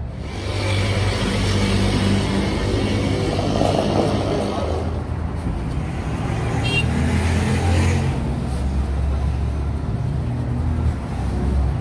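Motor vehicle engines running, a low hum with noise that swells and eases twice.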